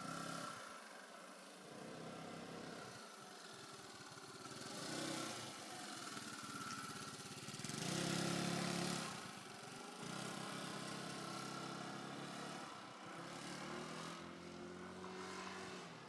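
Kymco Agility 125 scooter's four-stroke single-cylinder engine running at low speed during slow tight turns. Its note rises and falls with the throttle, and it is loudest about halfway through as the scooter passes close by.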